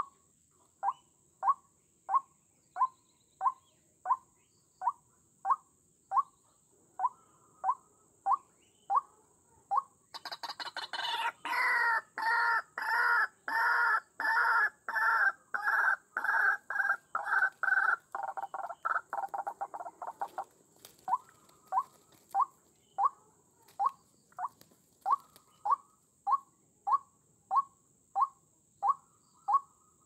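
White-breasted waterhen (ruak-ruak) calling: a monotonous series of short notes, about one and a half a second. About ten seconds in they break into a louder, faster run of harsh croaking notes lasting some ten seconds, then return to the single repeated notes.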